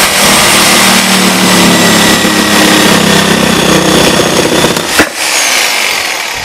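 Reciprocating saw with a double-edged blade cutting through a wooden board, running loud and steady. About five seconds in a sharp knock comes as the blade cuts through, and the saw then winds down, its whine falling in pitch.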